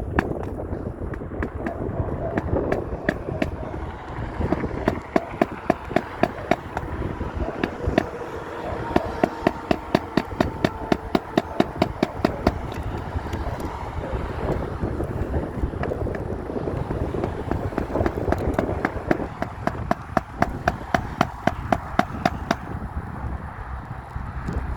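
Hammer driving a roofing nail with runs of quick, sharp strikes, about four a second at the fastest. The nail is stubborn and goes in hard.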